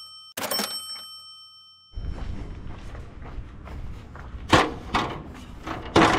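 A bell-like ding that rings and fades, then from about two seconds in an aluminium stepladder being handled and set up, with two loud metal clanks about a second and a half apart, the second ringing briefly.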